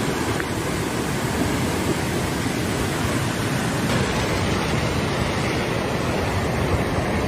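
Fast floodwater of a river in flash flood, a steady rushing noise.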